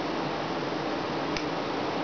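Steady hiss of room noise, with one faint short click about one and a half seconds in.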